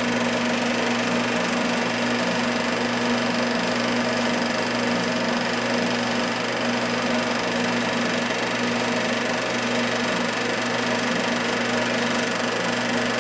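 Home movie film projector running steadily: a constant mechanical whir with a few steady hum tones.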